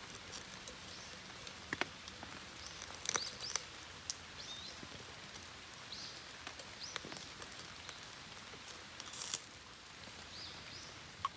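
Wood fire crackling in a Soomloom mini wood stove, with scattered sharp pops, the loudest about three seconds in and again near nine seconds. Short bird chirps come now and then over a steady outdoor hiss.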